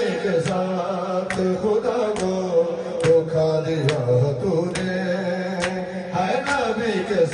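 Noha, a Shia lament, chanted by male reciters into microphones over a sound system. It is accompanied by an even beat of sharp slaps, about one a second, from mourners beating their chests in matam.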